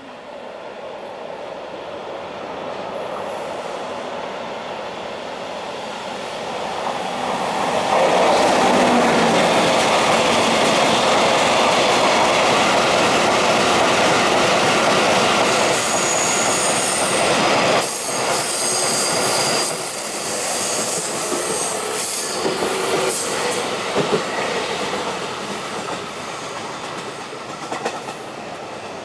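EF64 electric locomotive hauling a long train of empty steel hopper wagons: the noise grows as it approaches, then the wagons' wheels run loudly over the rails as they pass close by. Shrill wheel squeal joins in about halfway through, and the sound eases off toward the end.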